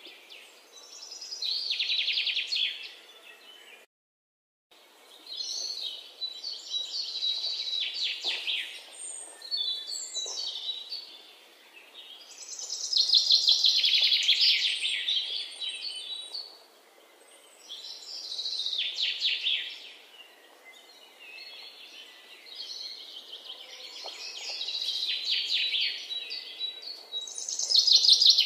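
Birds singing: repeated phrases of rapid high trills and chirps, a second or two each, with a short gap of silence about four seconds in.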